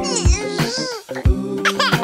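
Upbeat children's-song backing music with a steady drum beat, overlaid with short swooping, giggle-like cartoon vocal effects in the first second and again near the end.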